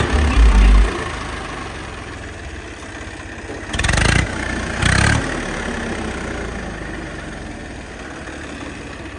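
Swaraj 855 FE tractor's three-cylinder diesel engine running, loud for the first second and then idling more quietly, with two short louder bursts about four and five seconds in.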